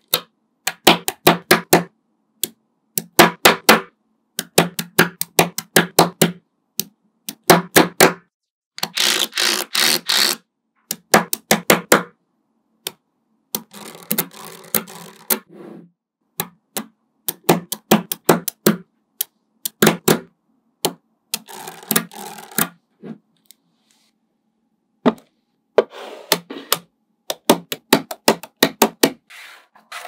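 Small magnet balls clicking as they snap together, in quick bursts of sharp clicks with short pauses between. About nine seconds in comes a longer, denser rattle, and about two-thirds of the way through there is a pause of two seconds or so.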